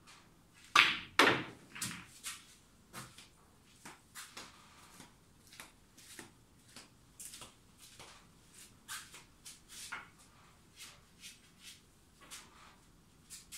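Snooker balls: two sharp clicks about half a second apart as the cue strikes the cue ball and the cue ball hits an object ball, followed by a run of softer knocks of balls against cushions and into pockets and footsteps on a concrete floor.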